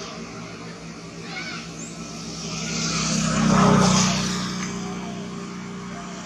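A motor engine humming, swelling to its loudest about three and a half seconds in and then fading, as a vehicle passing by.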